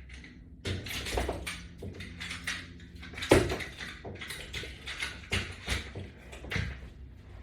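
Irregular knocks, clicks and rattles of exercise equipment being handled, with one sharper knock a little over three seconds in.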